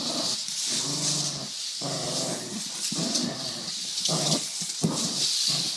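A small Pomeranian–Shih Tzu mix dog growling and whining in a run of short, pitch-bending pulls that mimic an engine revving. A steady hiss runs underneath.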